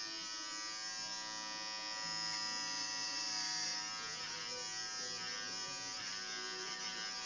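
Electric hair clippers running with a steady buzz while shaving a head of hair.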